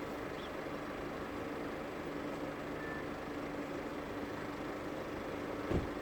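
A vehicle engine idling with a steady hum. A single dull thump comes near the end.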